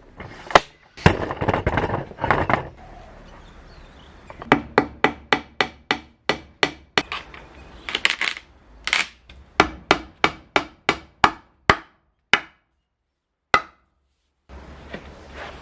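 Hammer blows on timber: a long, even run of sharp strikes at about three a second, then two single strikes.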